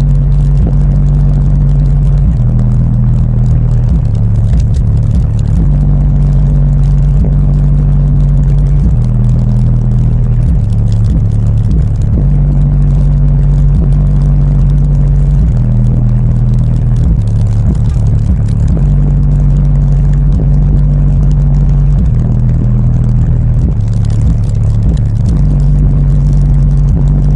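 Custom 12-inch subwoofer with a hybrid NC motor playing a bass-heavy track loudly while being run in at 350 W RMS, its deep low notes changing every second or two.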